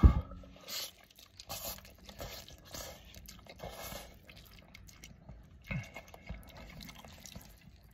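A man slurping and chewing instant ramen noodles, with a series of short slurps in the first four seconds and a few fainter mouth sounds after. A brief thump sounds right at the start.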